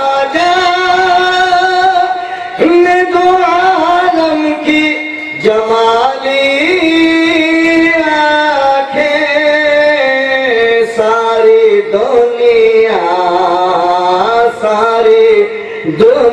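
A man's voice singing a naat solo into a microphone, holding long drawn-out notes that step up and down in pitch.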